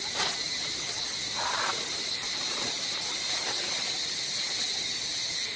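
Steady, high-pitched buzzing of an insect chorus, with one brief click near the start.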